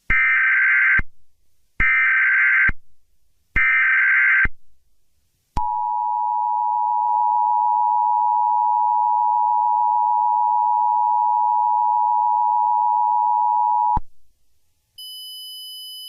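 Emergency Alert System signals: three one-second bursts of SAME header data tones, then the two-tone EAS attention signal held steady for about eight seconds before cutting off sharply. Near the end a quieter, higher steady tone begins.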